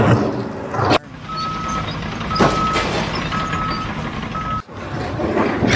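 Vehicle reversing alarm beeping at a steady pitch, four beeps about a second apart, over a low engine rumble. A loud, noisy stretch from other clips comes before it and after it.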